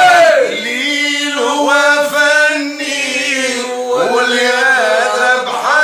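Men singing unaccompanied in Arabic, a lead male voice holding long, ornamented notes that bend up and down.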